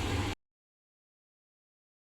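Steady hum of the saw blade grinder running, which cuts off abruptly about a third of a second in, giving way to dead silence.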